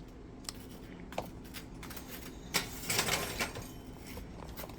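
Butter knife scraping across burnt toast in a brief rasp, after a couple of light clicks.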